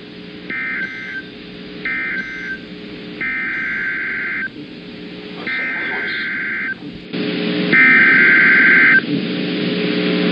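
Emergency Alert System SAME data bursts: harsh two-tone digital screeches. Two short bursts come first, then three longer ones about a second long, the last the loudest. These are the end-of-message code closing one alert and the header code opening the next. A steady low droning tone runs underneath.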